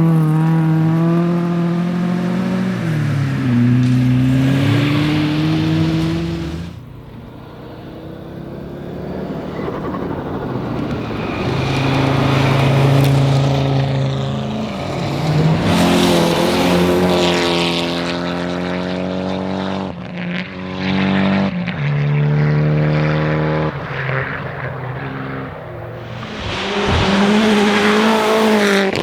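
Historic rally cars at full throttle on a special stage, one after another. The engines run at high revs with pitch steps at gear changes, and the sound cuts abruptly about seven seconds in before the next car's run builds up.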